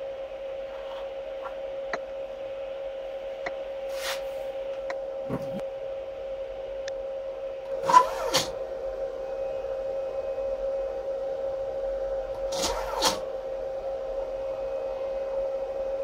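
Steady high hum of the CNC machine's NEMA 17 stepper motors, energized and holding position. Short noisy bursts cut in about halfway through and again near the end.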